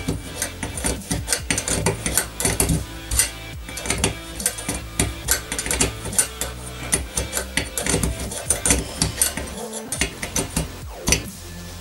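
Light metallic clicks and taps, many in quick irregular succession, as small clutch parts (shoes, springs) are handled and fitted by hand on a nitro RC engine.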